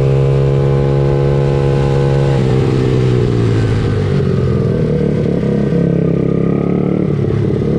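Small 90 cc pit bike engines running: a steady held engine note that turns rougher and unsteady about two and a half seconds in.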